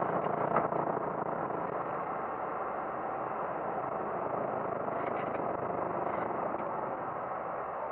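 Steady rushing noise inside a Boeing 737-800 cockpit as the jet lifts off and climbs: its CFM56-7B engines at takeoff thrust mixed with airflow over the airframe.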